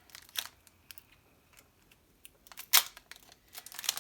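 A few scattered sharp clicks and light crackles from handling Pokémon card-pack packaging, with one louder snap about three quarters of the way in.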